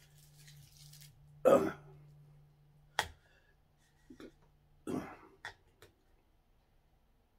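A man clearing his throat twice, loudest about one and a half seconds in, with crinkles and sharp clicks as a plastic straw is taken from its wrapper and pushed into a small drink carton. A low steady hum runs underneath and stops near the end.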